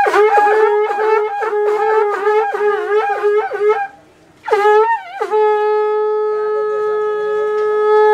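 A solo wind instrument playing a melody: a run of short notes with bends, a brief pause just under four seconds in, then one long held note.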